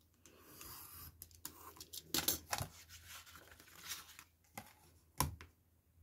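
Snap-off craft knife drawn through card along an acrylic ruler on a cutting mat, a short rasping cut, followed by scrapes and rustles as the card and ruler are handled, and one sharp knock a little after five seconds in.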